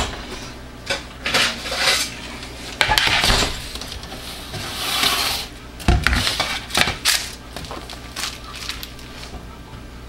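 Rustling and a few sharp clanks as a metal baking sheet lined with parchment paper is handled and set down on a stovetop, the strongest knocks about three and six seconds in.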